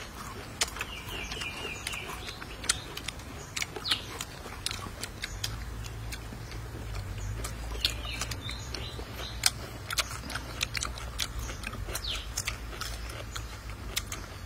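Close-up eating sounds: crisp bites and chewing of fresh cucumber slices, heard as a scattered run of short, sharp crunches. Faint bird chirps come now and then, and a low hum runs through the middle.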